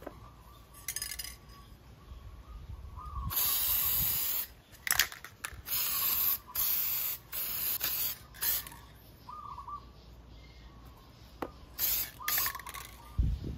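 Aerosol can of air filter oil hissing in a series of spray bursts, the longest about a second, as it coats a foam air filter; two more short bursts come near the end.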